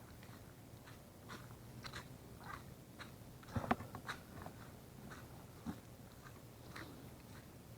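Footsteps crunching on dry leaf litter and twigs along a forest trail: faint, irregular crunches about every half second, with one louder sharp crackle about three and a half seconds in.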